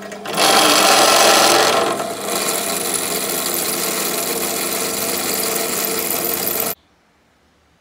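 Bench drill press running and its bit cutting through thick, very hard old iron plate: a loud grinding cut over the steady hum of the motor, loudest for the first second or so and then steady, cutting off suddenly near the end.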